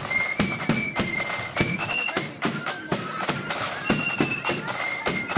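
Marching flute band playing: flutes carry a high melody over a steady beat of bass and side drums.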